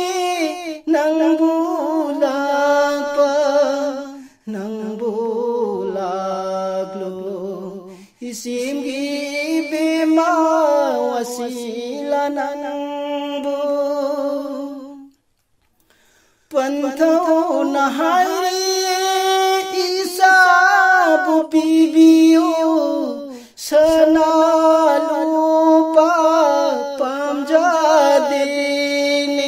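A solo male voice singing a naat unaccompanied, drawing out long, wavering melismatic phrases, with a short break about halfway through.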